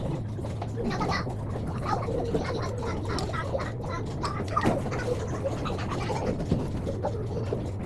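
Indoor playground din: children's voices and bits of chatter with short clinks and knocks, over a steady low hum.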